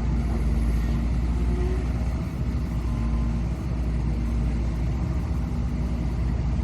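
Excavator's diesel engine running steadily at a low throttle setting, a constant low rumble with a steady hum.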